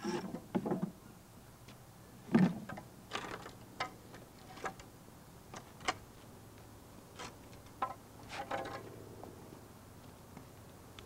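Wooden rafter boards being set down and shifted on a concrete slab: a scattering of wooden knocks and clatters, the loudest about two and a half seconds in, and a short scrape near the end as a board is slid into place against the truss.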